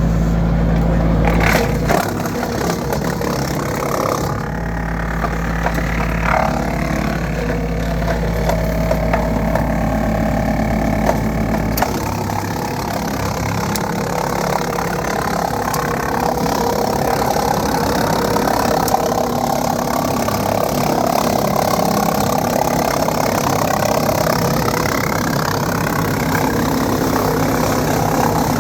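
Kioti CK2610 tractor's diesel engine driving a Woodland Mills WC68 PTO wood chipper as a cedar log is fed through. The rotor chews the wood with repeated cracks and knocks, and the engine pitch shifts and wavers under the load.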